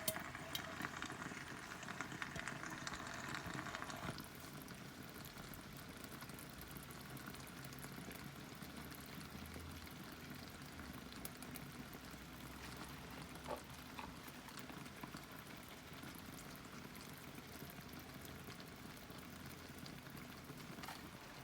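A pot of food bubbling steadily on the stove, a little louder for the first four seconds or so and then settling to a softer simmer.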